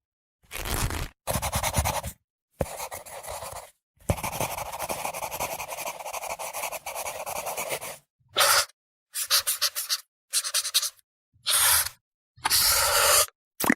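A string of separate short sound effects, each ending in a hard cut to silence: three short noisy sounds in the first few seconds, one longer noisy sound lasting about four seconds, then five brief bursts in quick succession.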